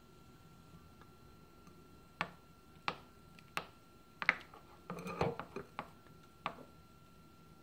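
A silicone spatula tapping and scraping against a glass bowl as it stirs a thick, wet avocado and egg mask. There are about six sharp clicks, roughly two-thirds of a second apart, with a short burst of quicker wet scraping and clicking in the middle.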